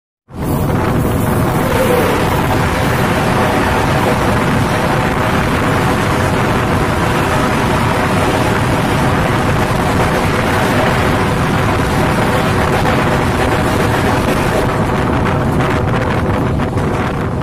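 Loud, steady rush of wind and wheel-on-rail noise at the open door of a moving passenger train as the Kanpur Central–Anand Vihar Terminal Express passes at speed on the adjacent track. The noise cuts in suddenly at the start, and its hiss eases about fifteen seconds in as the passing train clears.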